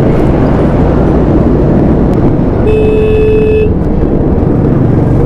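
Royal Enfield Classic 350 single-cylinder engine running steadily at highway cruising speed, with wind rush on the camera. About halfway through, a vehicle horn sounds once, one steady note held for about a second.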